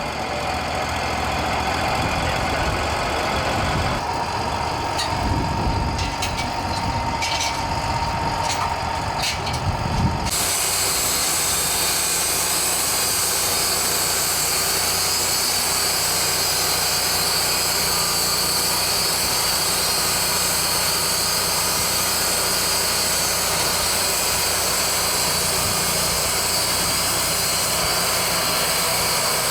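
Steady machine noise of a power tool or woodworking machine running. About ten seconds in, the sound changes abruptly to a steadier, brighter hiss.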